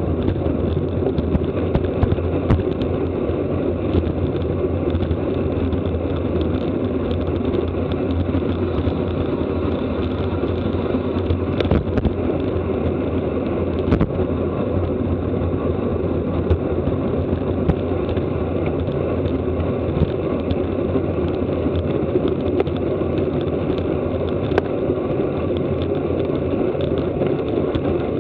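Steady rush of wind over the microphone and road noise from a road bicycle ridden at race speed, with occasional faint clicks.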